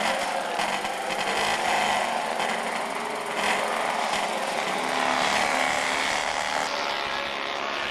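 DB Monomill single-seater's small Panhard flat-twin engine running hard on the circuit, its pitch shifting up and down with the revs.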